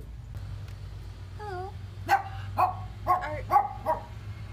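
A dog barking: one wavering whine about one and a half seconds in, then about five short, high-pitched barks roughly half a second apart.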